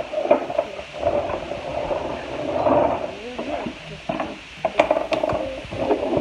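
Small plastic toy school bus pushed by hand across a wooden floor: wheels rolling and scraping, with a cluster of sharp plastic clicks and knocks about five seconds in.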